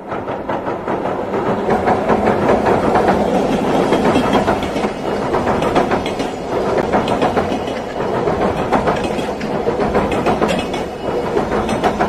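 Container freight train crossing a steel girder bridge: a steady loud rumble with a dense clatter of wheels over the rails, starting suddenly as the locomotive comes onto the bridge.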